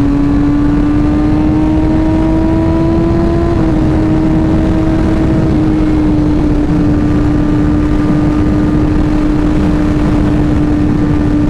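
Sports motorcycle engine running at steady highway cruising speed, its note rising a little over the first few seconds and then holding level, under heavy wind rush on the rider's microphone.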